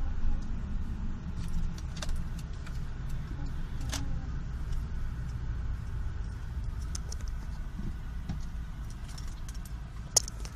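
Subaru Forester on the move, heard in the cabin: steady road rumble with a faint whine a little like a speedometer cable, a wheel-speed-dependent noise caused by a stuck brake pad guide. A few light clicks and jingles, the sharpest near the end.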